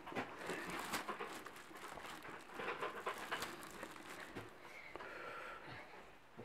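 Clear plastic packaging bag crinkling and rustling as it is handled, in quiet irregular crackles.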